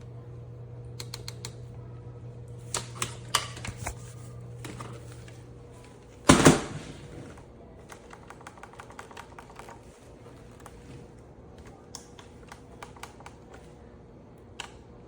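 Irregular light clicks and rattles, like plastic parts being handled. A louder clattering burst comes about six seconds in, and a faint low hum stops at the same moment.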